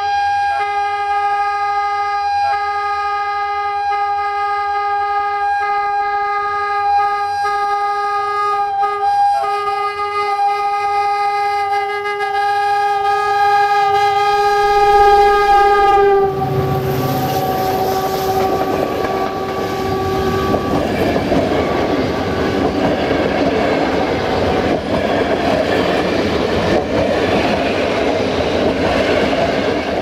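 Air horn of CFR diesel locomotive 65-0989-7 held in one long steady blast, growing louder as the locomotive approaches and cutting off about sixteen seconds in as it passes close by. After that comes the rumble and clickety-clack of the passenger train's wheels over the rails.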